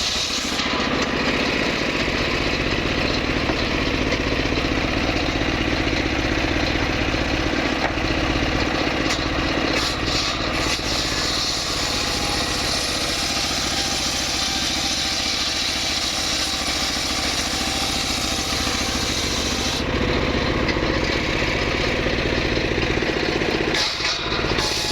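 A saw's petrol engine running continuously. The high hiss drops away about half a second in and comes back about 20 seconds in.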